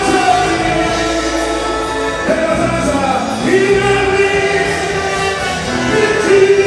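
Ghanaian gospel worship music: a choir singing long, held notes.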